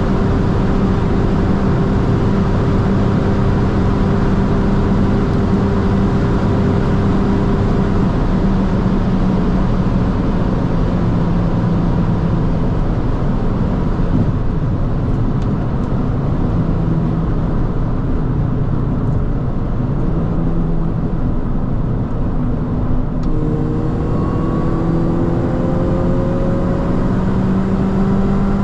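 Mini John Cooper Works GP (R53), with its supercharged 1.6-litre four-cylinder, driven at high speed: a steady engine drone under heavy road and wind noise. About 23 seconds in, the engine note starts to climb slowly and steadily as the car accelerates again.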